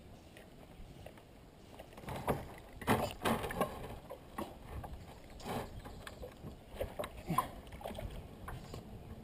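Handling noise from a fly angler in a kayak: short knocks and rustles as fly line is stripped and cast from the boat, starting about two seconds in.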